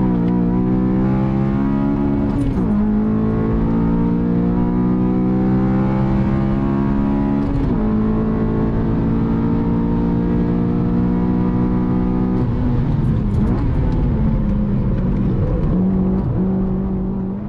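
2010 Honda Civic Si's K20 four-cylinder i-VTEC engine pulling hard under load, heard inside the cabin, its note climbing and breaking off briefly three times as gears change. Near the end the engine note falls away as the driver lifts off.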